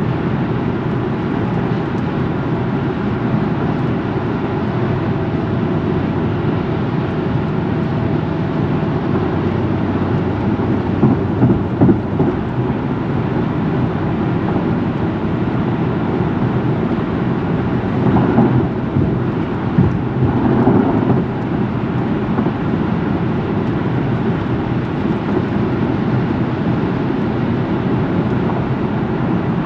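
Steady low rumble of a running vehicle, with a few brief louder swells about a third of the way in and again about two-thirds in.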